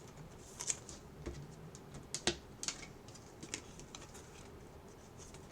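Baseball trading cards being handled and flipped through by hand: a scatter of soft, irregular clicks and flicks, with one sharper click a little past two seconds in.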